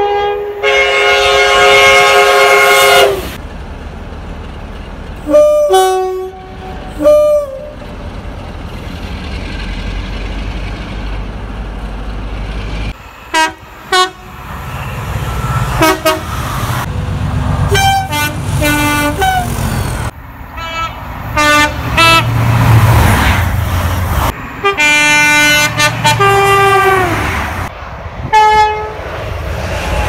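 A string of two-tone train horn blasts from several different trains, cut together: a long blast about a second in, short blasts and pairs scattered through the middle, and another long blast late on. Between the horns comes the low rumble of a diesel locomotive's engine and wheels passing close by.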